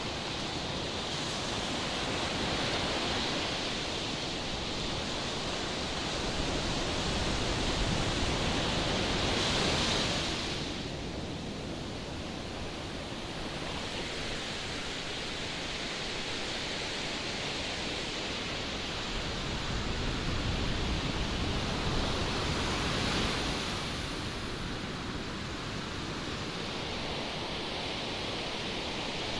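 Steady rushing of strong wind and sea surf, swelling louder twice.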